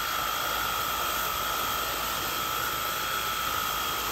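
CRUIFU cordless pressure washer's battery-powered motor running steadily with a high whine, and its water jet hissing against vinyl siding.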